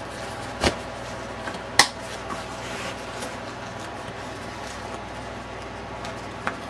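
Plastic Fastex side-release buckles snapping shut: two sharp clicks within the first two seconds, the second the loudest, and a fainter click near the end.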